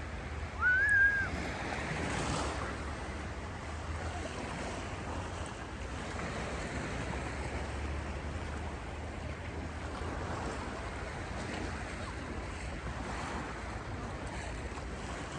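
Sea waves washing on the shore as a steady rush, with a low rumble underneath. About half a second in, a short high-pitched tone sounds once, louder than the surf.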